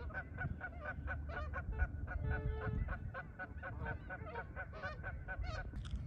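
Several Canada geese honking in a fast, unbroken series as they fight, about three or four honks a second with overlapping calls. The honking cuts off just before the end.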